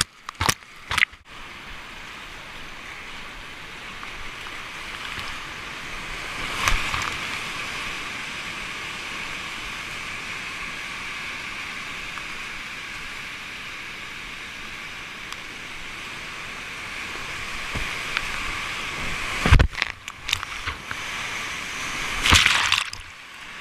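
Whitewater rapids rushing steadily around a kayak, with loud sudden splashes as the boat drops through waves and water breaks over it: at the start, about seven seconds in, and twice near the end.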